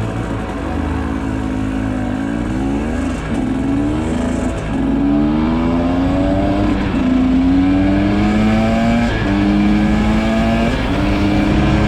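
Husqvarna TE 300 two-stroke enduro motorcycle engine accelerating up through the gears: the pitch climbs steadily, drops back at each shift and climbs again, four or five times, then holds steadier near the end.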